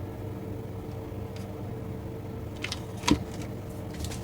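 Steady background hum with a few light clicks and one sharper knock about three seconds in, as parts are handled on the workbench.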